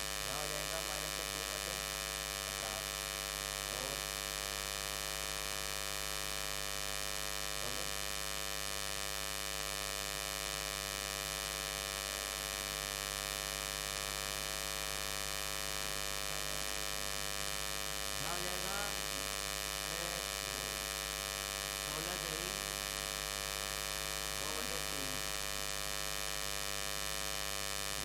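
Steady electrical hum and buzz with a dense stack of overtones, unchanging throughout. It is noise from an inverter-powered light picked up on the recording.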